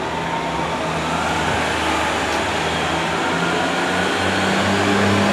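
Class 143 Pacer diesel multiple unit drawing slowly into the platform, its underfloor diesel engines running with a steady low hum that grows louder as it approaches. Faint high squeals sound over it.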